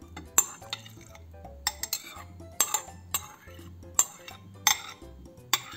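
A metal spoon clinking against the rim of a bowl and a glass mixing bowl as grated cucumber is scraped out into yogurt: about eight sharp, separate clinks, some with a brief ring.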